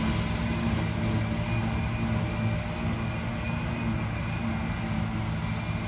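John Deere tractor pulling a Schuitemaker silage wagon, its diesel engine droning steadily and fading slightly as it drives away across the field.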